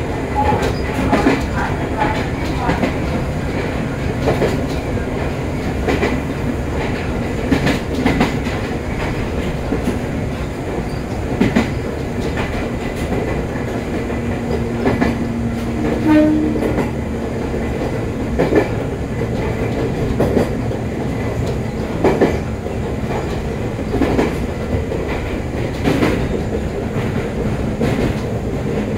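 A Joshin Line electric train running along the track: a steady rumble and hum with wheel clicks over rail joints every second or two.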